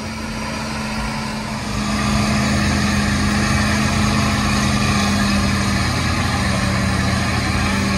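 A truck engine running steadily at an even pitch, getting louder about two seconds in.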